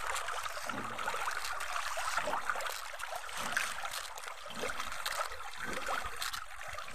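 Many fish splashing and churning the surface of a farm pond as they feed: a continuous wet crackle of small irregular splashes.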